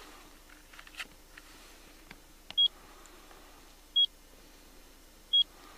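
Pieps DSP avalanche beacon in search mode giving three short, high-pitched beeps about a second and a half apart as it picks up the buried transmitters.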